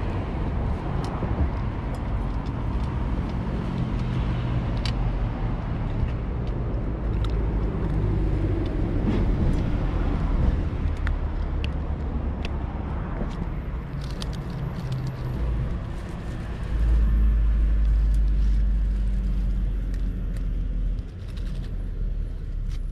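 Road traffic: motor vehicle engines running and passing in a steady low rumble. The rumble swells for a few seconds about three-quarters of the way through, then drops back.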